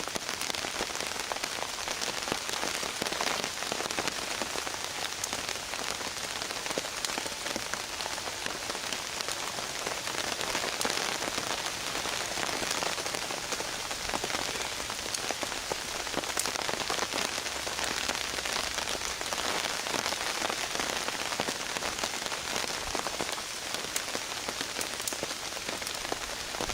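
Steady rain falling on a tarp, a dense run of small drop hits over an even hiss.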